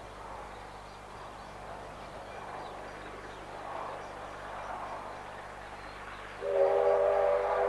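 An approaching steam locomotive's whistle sounds a long, loud blast with several notes sounding together, starting about six seconds in. Before it, only the train's faint, distant running noise is heard.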